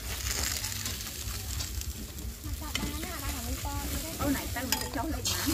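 A pastry brush scraping and dabbing sauce over a crisp rice-cracker crust in a metal pot, a scratchy brushing with a few sharp ticks.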